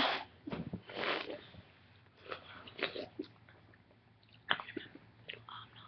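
Several short, breathy bursts of a person's voice, scattered through the few seconds, with a sharper one about four and a half seconds in.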